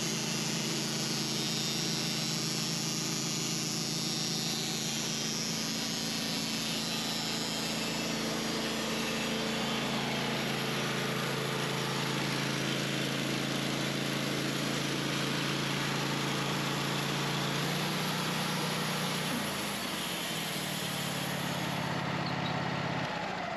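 Band sawmill's engine running steadily while the blade saws through a log, with a hiss from the cut over the engine note. About three-quarters through, the engine note steps up, and it cuts off just before the end as the mill is shut down.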